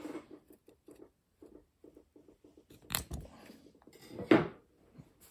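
Scissors snipping off the tag end of nylon net twine after a sheet bend is tied: faint handling clicks, then a sharp snip about three seconds in, followed a second later by a louder short rustle.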